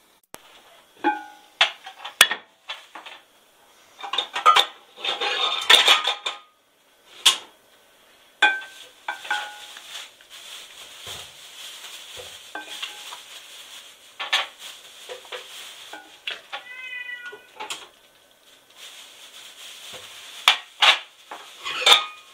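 Metal cookware clattering: an aluminium pot lid clanks as it is handled, then a small bowl scrapes and knocks against the pot while it scoops cooked rice. There is one brief pitched squeak about two-thirds of the way through.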